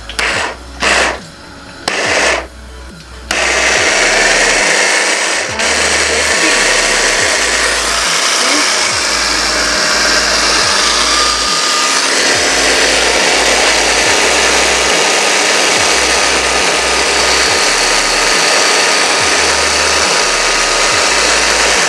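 Braun electric mixer blending mayonnaise: three short pulses in the first three seconds, then the motor runs on steadily.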